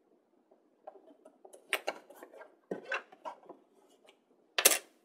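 Chipboard craft pieces being handled on a tabletop: scattered light taps, scrapes and paper rustles, then one sharper, louder rustle or tap near the end.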